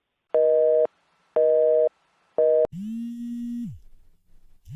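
Telephone busy signal after a hang-up: three short beeps about a second apart, the third cut off. Then a lower, buzzier telephone tone sounds twice, about a second each, as the next call rings through.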